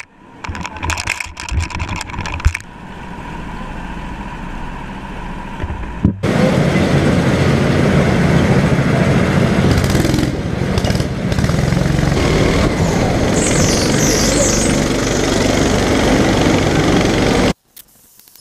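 Racing kart engine running hard, heard from an onboard camera on the kart, from about six seconds in until it cuts off abruptly near the end. Before that come a few seconds of voices and quieter background.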